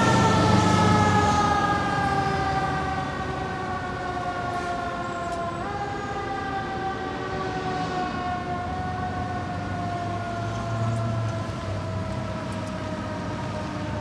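Siren of a fire department ladder truck sounding a long, slowly falling wail that fades as the truck drives away. About six seconds in the pitch jumps back up, then falls slowly again. The truck's low engine rumble dies away in the first second or so.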